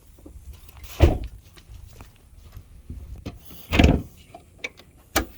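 Handling noises: two dull knocks about three seconds apart, then a sharp click near the end.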